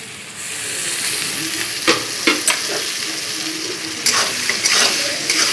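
Cut potato chunks and onions sizzling in hot oil in a kadai, the sizzle picking up just after the start as the potatoes go in. A flat metal spatula scrapes and knocks against the pan several times as they are stirred.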